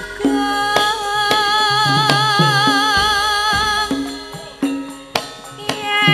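Javanese gamelan music for a shadow-puppet show: a woman's voice holds a long, wavering note over drum strokes and pitched percussion. The music thins out about four seconds in, with a sharp clack near the five-second mark, then picks up again.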